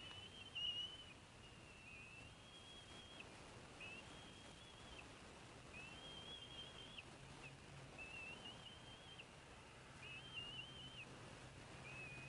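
Faint, high wavering calls from a small bird in the background, each about a second long, repeated seven times at an even pace over a low steady hum.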